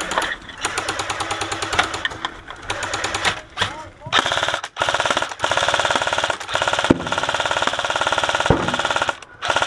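Airsoft electric rifles firing on full auto in long rapid bursts, with a few short breaks between them.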